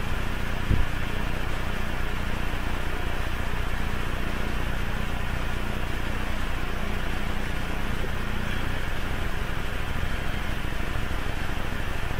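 Steady background hum and hiss with no speech, and one brief knock a little under a second in.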